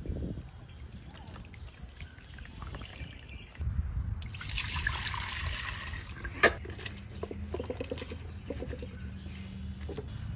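Cooking liquid being poured from a bowl into a pot for a couple of seconds, followed by a single sharp clink.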